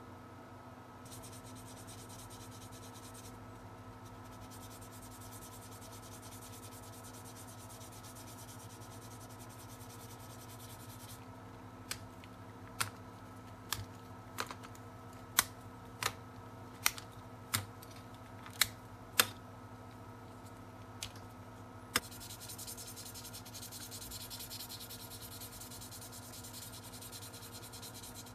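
Sanding pad rubbing back and forth over a thin plastic capsule-toy shell part, a steady scratchy hiss. For a stretch in the middle the rubbing stops and about a dozen sharp clicks come instead, then the sanding resumes.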